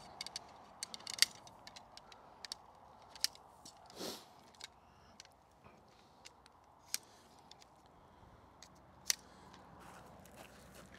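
Scattered sharp clicks and taps from handling the awning's clips and fittings, with one brief louder swish about four seconds in.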